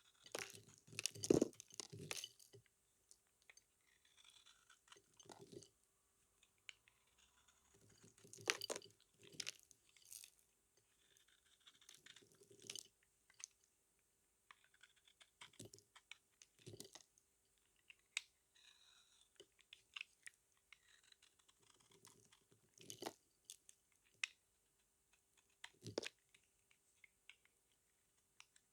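Blade cutting through a bar of soap: quiet crunching and crackling strokes in bursts every few seconds, the biggest near the start and around eight seconds in, with softer scraping between.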